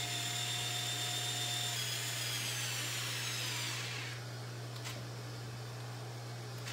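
A small handheld power tool running with a high whine for about four seconds, its pitch sagging slightly in the second half before it stops; a single light click follows.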